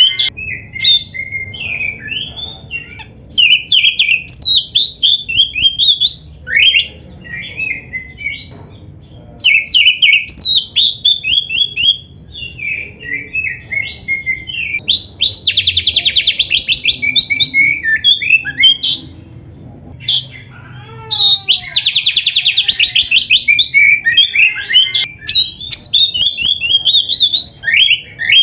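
Oriental magpie-robin singing a long, loud, varied song of rising and falling whistles and chattering notes, packed with mimicked calls, broken twice by a fast rattling trill lasting a second or two.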